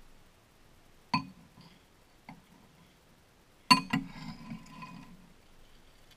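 A metal spoon clinking against a ceramic cereal bowl: a few sharp, ringing clinks, the loudest pair about two-thirds of the way through, followed by a short rattle of the spoon scooping cereal in the bowl.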